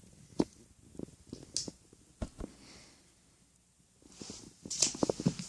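Yu-Gi-Oh trading cards being handled: scattered soft clicks and taps as cards are shuffled through, with a short breathy rustle near the end.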